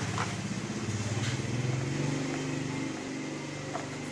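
Small engine running steadily, its pitch shifting a little every second or so. Over it come a few light clicks of small metal parts being handled on the bench.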